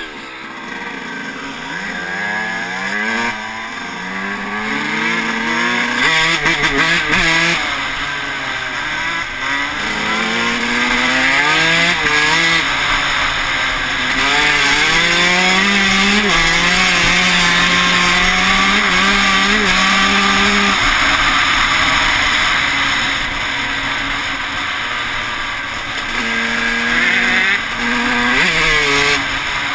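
Yamaha YZ125 two-stroke single-cylinder dirt bike engine revving up through the gears, its pitch climbing and dropping back at each gear change, then held high and steady for several seconds before easing off and climbing again near the end. Heard from a helmet-mounted camera.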